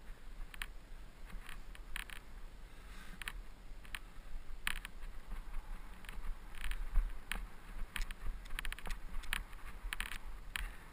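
Mountain bike rattling over a dirt trail: irregular clicks and rattles, thicker in the second half, over a steady low rumble of wind on the microphone.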